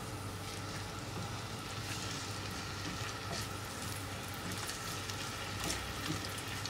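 Diced tomatoes and green peppers sizzling steadily in hot olive oil in a frying pan, stirred with a silicone spatula, with a few faint ticks.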